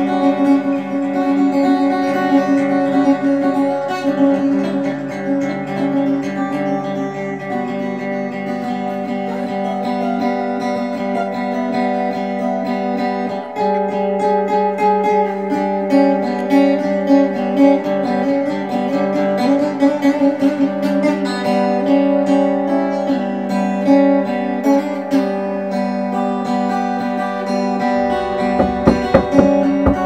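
Music: an acoustic guitar strumming and ringing out sustained chords that change every few seconds. Low pulsing bass strokes come in near the end.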